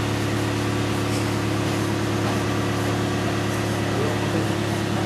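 Steady mechanical hum of a running machine, with a few low tones held unchanged throughout.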